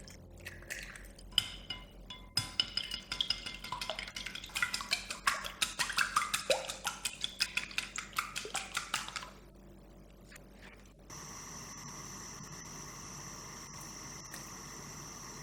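A utensil clinking quickly and rhythmically against a bowl, about three or four strokes a second, as when beating eggs or stirring a sauce. It stops after about nine seconds, and a steady hum with a faint high whine starts about eleven seconds in.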